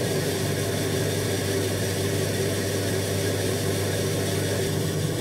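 Electric pottery wheel motor running at a steady speed: an even hum with a faint hiss.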